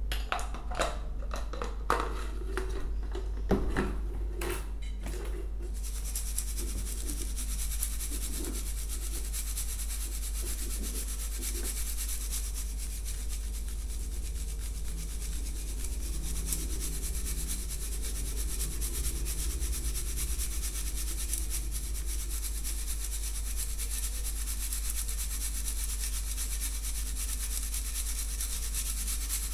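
A few knocks and clatter as a plastic blender grinder jar is handled, then from about six seconds in a steady scratchy rubbing as ground bird-feed powder is sifted through a metal sieve.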